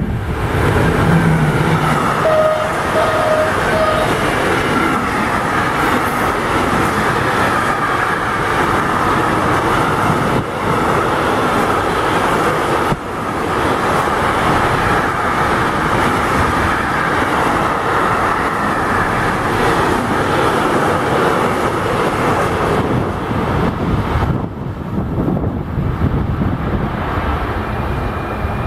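Electric locomotive hauling a long container freight train past at close range: a steady heavy rumble and clatter of wheels on the rails, with a faint whine over it. The sound drops away about twenty-four seconds in as the last wagons pass.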